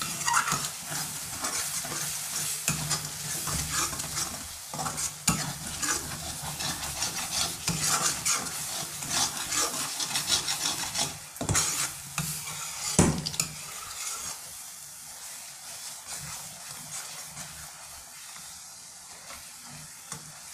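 Flat metal spatula scraping and stirring thick spiced gravy around a kadhai, over a steady sizzle. The strokes are quick and busy for about the first thirteen seconds, with a couple of sharp knocks partway through, then give way to a quieter sizzle.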